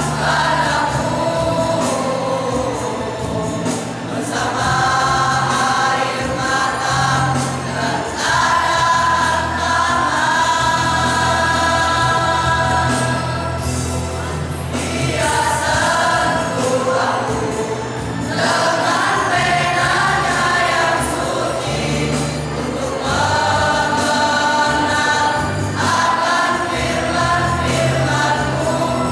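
Male student choir singing together through stage microphones, in phrases broken by short breaths every few seconds.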